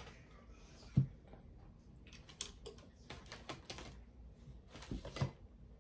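Scattered light clicks and taps of small objects being handled at a table, with a dull knock about a second in, a run of quick clicks in the middle and two more knocks near the end.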